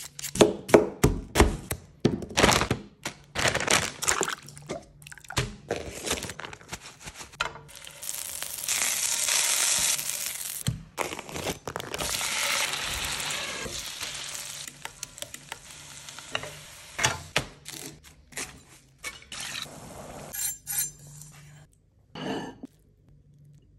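A run of kitchen prep sounds. Quick scrapes and knocks come first as a potato is peeled, then potatoes sizzle in a hot oiled pan for several seconds. Scattered clinks and knocks follow.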